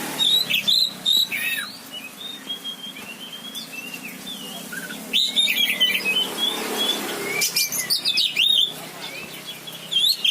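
Oriental magpie-robin (kacer) singing in three bursts of sharp, sliding whistled notes: about half a second in, around five seconds in, and near eight seconds. Scattered single notes come between the bursts.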